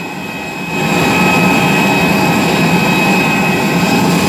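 Steady jet whine and rumble from a parked AirAsia jet airliner at the stand, its auxiliary power unit running while passengers board. It grows louder about a second in.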